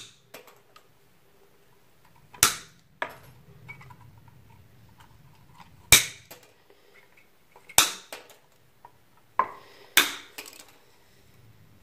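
Wire cutters snipping through the copper cores of electrical cable to shorten them: four sharp snaps a couple of seconds apart, with a few fainter clicks between.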